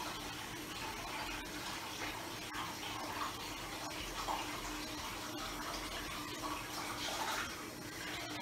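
Water running steadily from a tap into a bathroom washbasin, with small splashes and knocks as hands rinse and wipe in the basin, over a faint steady hum.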